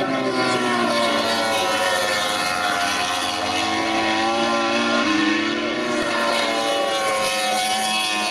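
MotoGP racing motorcycles passing at speed, their four-stroke engines at high revs, several engine notes sliding down and back up in pitch as the bikes go by.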